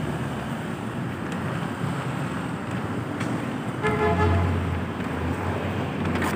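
City street traffic noise with wind buffeting the microphone. A short vehicle horn beep about four seconds in.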